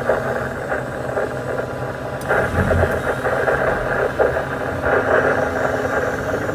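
Diesel engine of a KATO MR-350R rough-terrain crane running under hoisting load, heard from inside the operator's cab; it gets louder from about two seconds in, just after a click, as the winch lifts a bundle of steel rebar.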